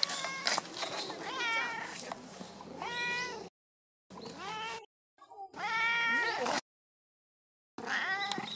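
A domestic cat meowing about five times in a row, short meows that rise and then fall in pitch.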